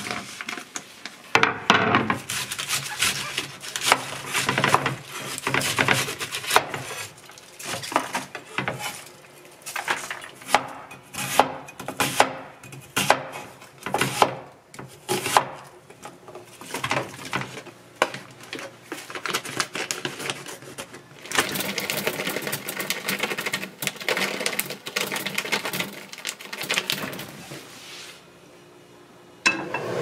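Kitchen prep sounds: a plastic package rustling, and a knife chopping onion on a wooden cutting board in many quick, uneven strokes.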